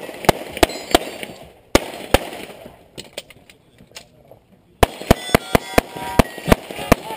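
Handgun shots fired in quick strings during a practical pistol stage. There are a few fast shots about a third of a second apart at the start and two more after a short pause. After a quieter gap, a rapid string of about ten shots comes in from about five seconds in.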